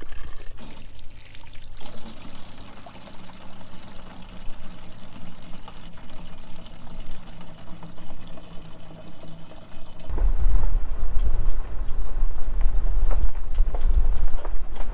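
Spring water pouring from a small spring outlet into containers being filled. About ten seconds in, a loud, low rumble takes over.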